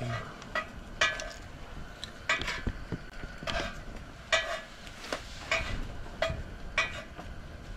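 Metal utensil striking metal cookware, about eight sharp ringing clinks at uneven intervals, typical of a spatula against a frying pan.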